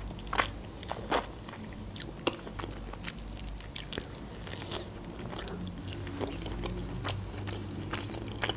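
A person eating chicken wings in sweet-and-sour sauce: biting into the meat and chewing, with many short, irregular clicks and smacks of the mouth.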